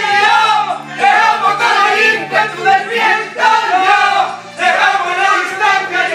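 A group of people singing loudly together, with held notes.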